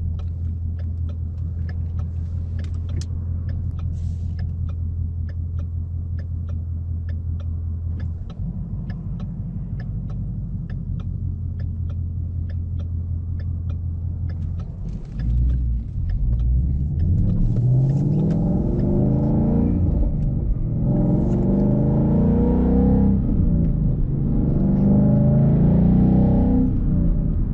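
2015 Mustang GT's 5.0-litre V8 heard from inside the cabin, running steadily at low revs with a faint regular ticking. About halfway through it gets louder and accelerates through the gears, its pitch climbing and dropping back at each upshift several times.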